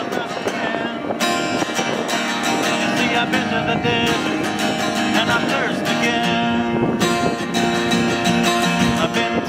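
Kona cutaway acoustic guitar strummed, with chords ringing.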